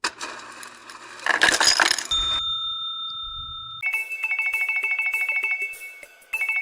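Electronic cartoon sound effects: a short noisy burst, then a steady electronic beep, then a fast trilling two-note ring like a telephone ringtone that stops briefly near the end and starts again.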